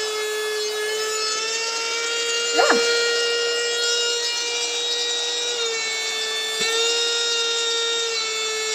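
Small cordless handheld mini vacuum running at its only speed: a steady, high-pitched motor whine. A brief rising-and-falling sound comes about two and a half seconds in.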